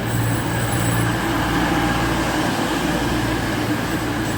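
Class 222 Meridian diesel multiple unit's underfloor diesel engines running with a steady low drone.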